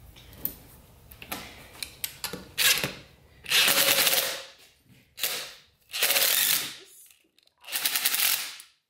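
Cordless DeWalt driver run in five short bursts, turning down the screw of a valve spring compressor to compress a valve spring on an LQ4 V8 cylinder head. Light metal clicks come before it as the compressor is set on the head.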